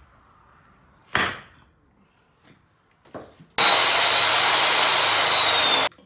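A single sharp knock about a second in, then an abrasive chop saw cutting metal for a little over two seconds: a loud, steady grind with a high whine that stops abruptly.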